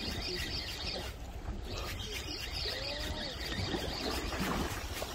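Wind buffeting the microphone over choppy sea water splashing against a concrete seawall, an uneven steady rumble and hiss.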